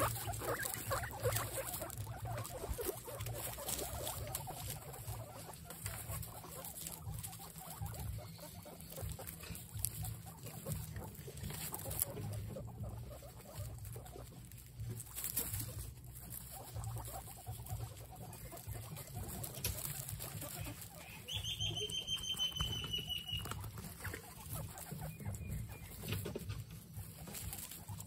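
A group of excited guinea pigs making small chattering noises while moving about on straw bedding. About three-quarters of the way through comes a single high, drawn-out whistling squeal.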